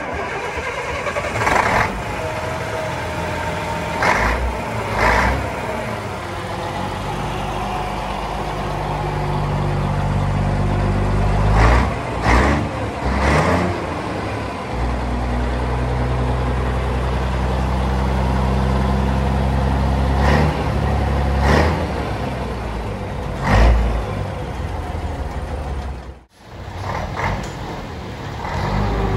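Scania 111 S's 11-litre diesel engine idling through its tall vertical exhaust stack, blipped several times in short bursts of throttle. The sound cuts out briefly near the end, then the idle carries on.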